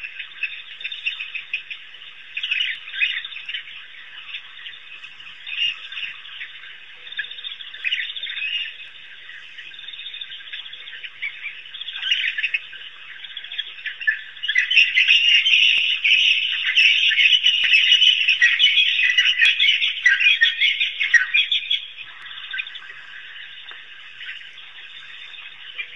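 High-pitched animal chirping and twittering runs through throughout, swelling into a dense, loud chorus past the middle for about seven seconds before easing back.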